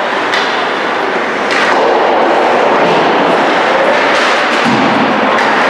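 Ice hockey game noise in an arena: a steady loud wash of rink noise with several sharp knocks of sticks and puck.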